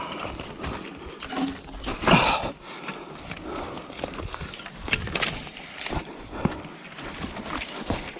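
Footsteps on loose, dry forest ground and the clatter of a mountain bike being handled and set down beside a fallen log, in irregular knocks and scuffs, with a louder thump about two seconds in.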